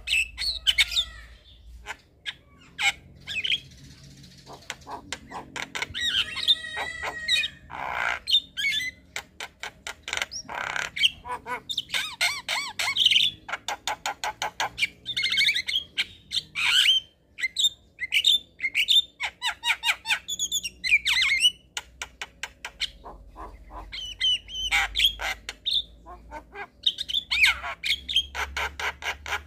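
Javan myna singing a long, varied song of harsh squawks, rapid clicks and short whistled and trilled notes.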